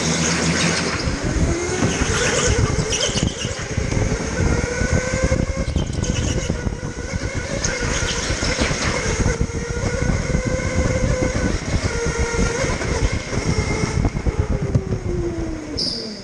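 Electric rental kart's motor whining, its pitch rising and falling with speed, over a dense rattle of chassis and tyres on the smooth floor, with short high tyre squeals in the corners. Near the end the whine falls away as the kart slows.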